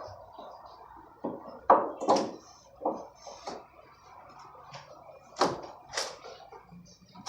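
Wooden form boards being knocked and pried off a concrete slab: about seven irregular knocks and bangs, the loudest about two seconds in.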